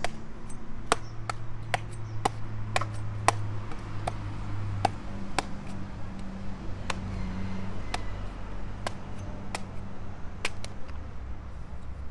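Heavy knife chopping open palmyra palm fruits: a string of sharp, irregular strikes, at times about two a second, coming further apart toward the end.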